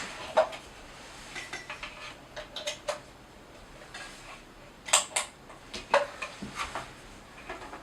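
Irregular light clicks and metallic clinks from handling an IKEA Forsa metal desk lamp while getting it lit, with a pair of sharper clicks about five seconds in.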